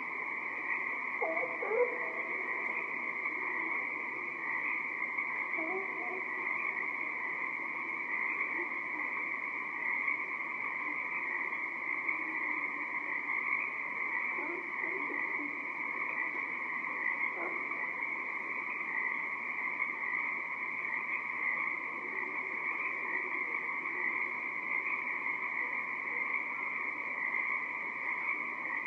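Dense chorus of Pacific tree frogs, a steady mass of overlapping calls, with occasional fainter, lower calls beneath it.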